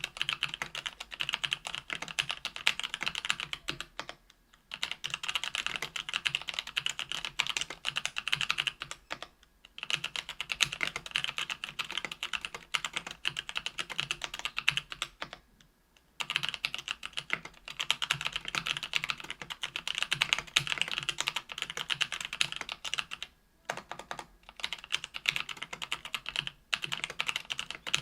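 Continuous fast typing on a 65% aluminum mechanical keyboard with stock Kailh Pro Purple 50g tactile switches and GMK keycaps, an aluminum plate and lubed stabilizers. It comes in quick runs of clacking keystrokes, with brief pauses between bursts several times.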